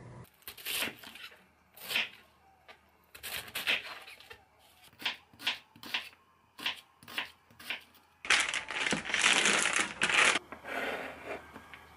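Kitchen knife cutting an onion on a wooden cutting board, a string of separate chopping strokes. Then, a little after eight seconds in, about two seconds of crinkling from a plastic food package being handled.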